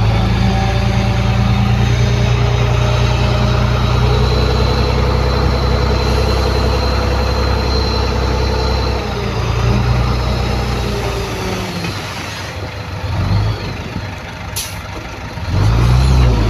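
Heavy diesel engine of earthmoving equipment running steadily and loud. About twelve seconds in it eases off and turns uneven, with a brief sharp high-pitched sound. It picks up again near the end.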